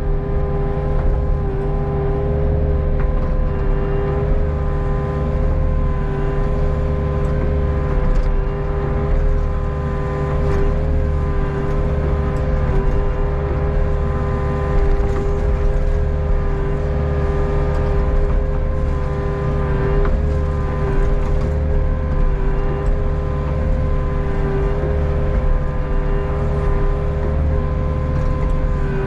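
Hitachi ZX48U mini excavator's diesel engine running steadily under working load, with a steady whine held on top as the boom and bucket dig.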